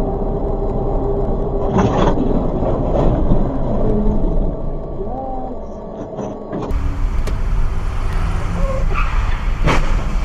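Road and engine noise inside a moving car, picked up by a dashcam, with a steady hum. About six and a half seconds in it switches abruptly to a different, noisier in-car recording.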